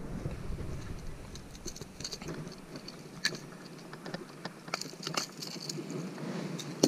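Light, scattered clicks and rattles of a hard-bodied jerkbait and its treble hooks against metal fishing pliers as the lure is worked free of a bass's mouth, with a sharper click about three seconds in and a few more around five seconds.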